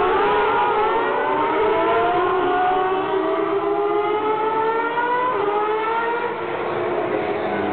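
Superleague Formula race cars' Menard V12 engines accelerating away, with several engine notes overlapping and rising in pitch as the cars pull off the grid for the warm-up lap.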